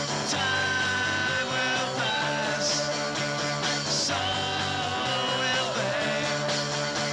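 Home-recorded punk rock trio playing a song: electric guitar, bass and drums, with long held sung notes.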